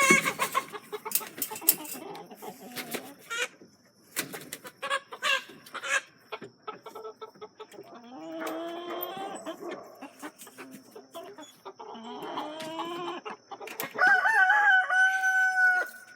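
Chickens clucking and squawking, with roosters crowing about three times, the last crow the loudest and longest, near the end.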